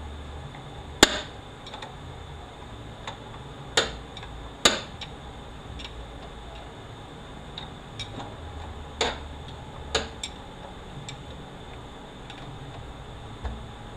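Metal hand tools and 4L80E transmission parts knocking and clinking during disassembly, as scattered sharp clanks with several louder ones a second or more apart, over a low steady shop hum.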